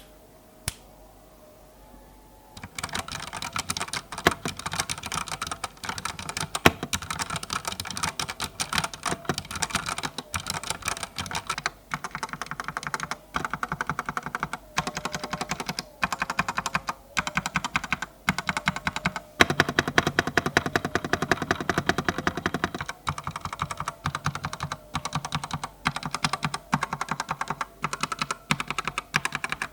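Fast typing on a Digital Alliance Meca Air S 65% mechanical keyboard with unlubricated OTEMU switches in a metal plate: a dense, continuous stream of keystroke clicks. It starts about two and a half seconds in.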